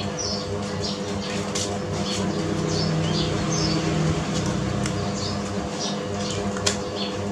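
Small birds chirping in short, repeated high chirps over a steady low hum, with a few sharp clicks, the loudest near the end.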